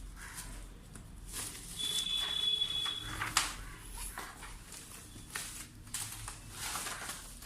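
Monitor packaging being handled as the monitor is lifted out of its box: rustling and scraping, with a high squeak lasting about a second near the start and a sharp click just after it.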